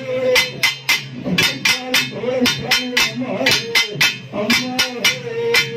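Traditional drum ensemble playing a fast, steady beat of sharp strikes, about three a second, over a low moaning tone that slides up and down, accompanying the Kali costume dance.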